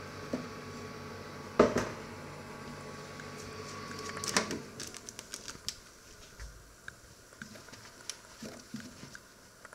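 Microwave combination oven running with a steady hum, with a knock about a second and a half in. Around four and a half seconds in, a cluster of clicks comes as the door is opened, and the hum stops at once. Scattered small ticks follow from the open oven with its hot grilled zucchini slices.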